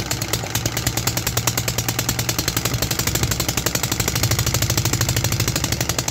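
Homemade 3D-printed single-cylinder four-stroke petrol engine with fuel injection, running fast on a test stand. It gives off a rapid, even train of firing pulses and exhaust clatter.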